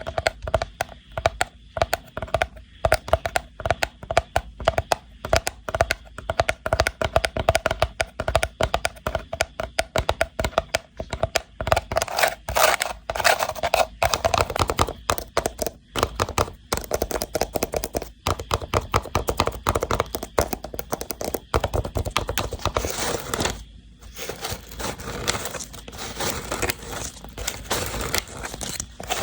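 A woven rattan box being handled for ASMR, fingers tapping and scratching its weave in quick, dense clicks and crackles.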